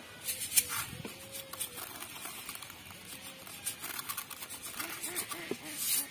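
Dry grains pattering and rustling against a plastic bowl. A hand stirs seeds in the bowl, then small rice is poured in from a plastic bottle.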